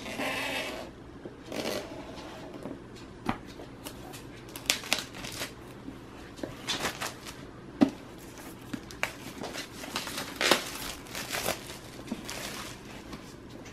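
Clear plastic shrink-wrap on an iPad box being cut with scissors and peeled off: irregular crinkling and tearing, with many sharp clicks and a few louder rustling bursts.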